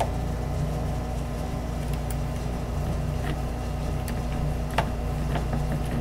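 A few faint clicks and light taps of a small Phillips screwdriver turning a small screw into a metal bracket, the sharpest about five seconds in, over a steady low hum.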